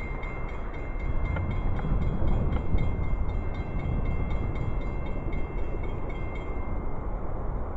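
Train passing, with a steady low rumble, plus a high, evenly repeating ring that stops about six and a half seconds in.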